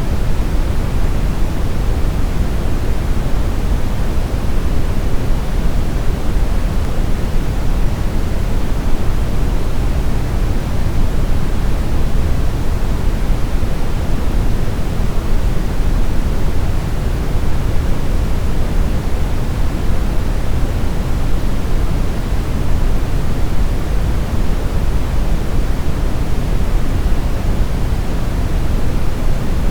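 Steady, unbroken brown noise: a deep, even rumble with most of its energy low down, falling off smoothly toward the highs, with no changes or events.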